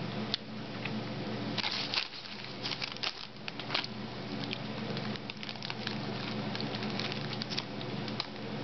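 Irregular crinkling and crackling as a toddler handles a plastic bag of seafood crackers and eats them. There is a steady low hum underneath.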